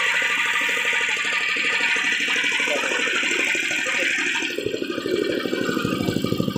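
KD 500 WG mini rice mill running, its small petrol engine beating rapidly and steadily under the hiss and rattle of the milling mechanism. About four and a half seconds in, the hiss drops away and the engine's pulsing comes to the fore.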